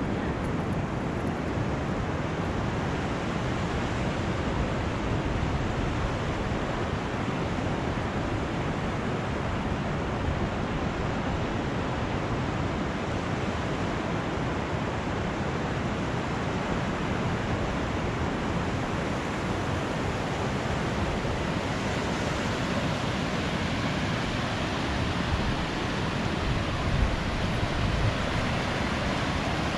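Ocean surf washing onto a beach without a break, mixed with wind buffeting the microphone; a couple of brief louder bumps near the end.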